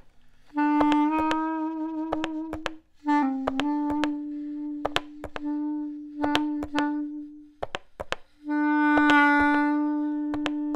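Music: a reed woodwind instrument plays long held low notes in three phrases with short breaks between them. Sharp clicks are scattered throughout.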